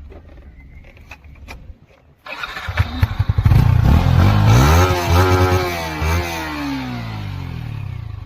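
Stock exhaust of a Yamaha R15 V4's single-cylinder 155 cc engine. The engine starts about two seconds in, is revved up, and the revs fall slowly back toward idle.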